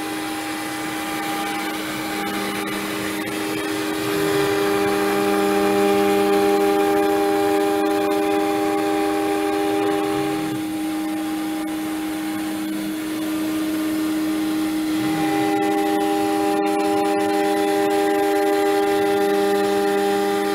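CNC router spindle whining steadily through a light roughing pass, with a dust-collection vacuum running alongside. The sound swells louder twice, for several seconds each time, as the cut goes on.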